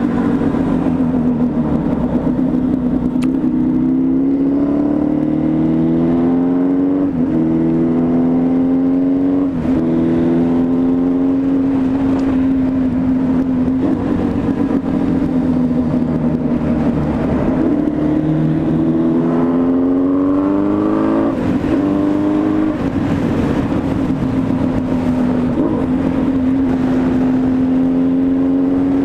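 Yamaha XJ6N's inline-four engine heard from the rider's seat, accelerating through the gears. The pitch climbs and drops sharply at each upshift, three times, with steady cruising between.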